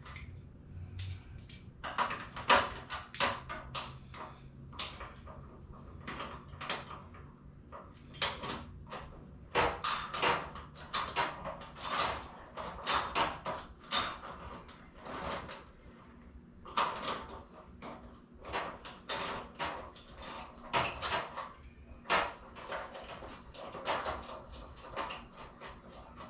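Ratchet and wrench working on new bolts: bursts of clicking and metal knocks, irregular and in clusters, as the bolts are run down and the bushings drawn together.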